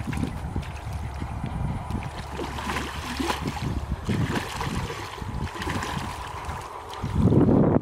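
Sloshing and splashing of someone wading through shallow muddy water, irregular steps and hand movements in the mud. About seven seconds in, wind buffeting the microphone comes in louder.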